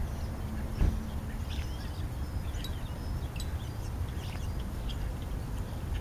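European starlings giving short chirps, clicks and whistles, over a low steady rumble, with a single thump about a second in.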